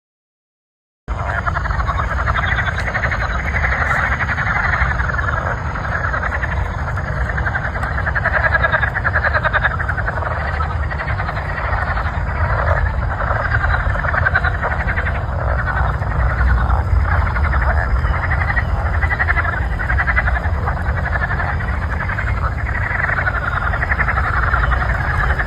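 A dense chorus of many frogs calling at once, a continuous, finely pulsing mass of calls. It starts abruptly about a second in, over a steady low rumble.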